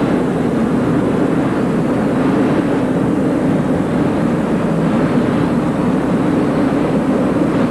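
Steady in-cockpit drone of a Buccaneer II amphibious ultralight in flight, a low hum with rushing air, unchanging in level.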